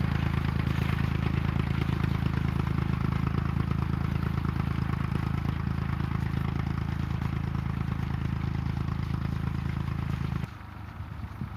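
Small Ferguson tractor engine running steadily under load. It drops away suddenly about ten seconds in, leaving a quieter, uneven clatter.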